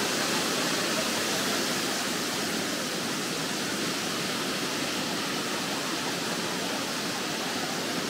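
Watagataki, a 32 m waterfall, pouring into the Tedori River gorge: a steady, unbroken rush of falling water.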